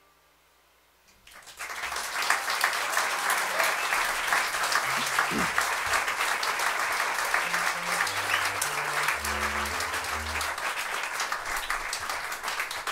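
Audience applause breaking out about a second in, right after the song's last note has died away, and carrying on steadily. A few short low notes sound under the clapping midway.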